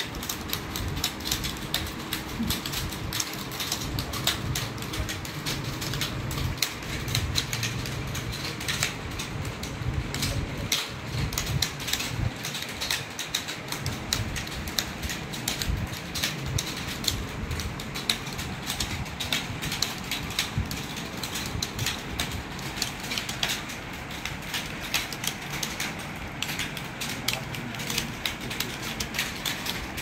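Many computer keyboards typed on at once by a roomful of typists: a dense, continuous, irregular clatter of keystrokes.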